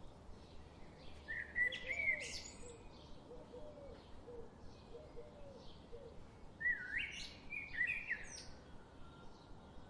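Birds singing outdoors: two loud, high song phrases, one about a second in and one about seven seconds in, over faint chirps repeated about twice a second, with a run of low, short notes in between.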